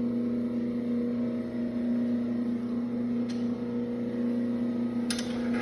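Electric motor of a stone-wheel bean and rice grinder running with a steady hum while the grinding-stone gap is being closed, with a faint click about halfway through and a few sharp clicks near the end.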